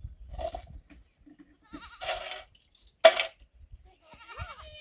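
Goats bleating, several separate wavering calls, the loudest about three seconds in.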